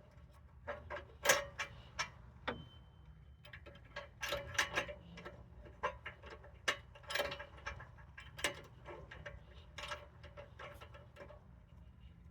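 Irregular metallic clicks and clinks of hand tools working on parts in a car's engine bay, over a faint steady low hum.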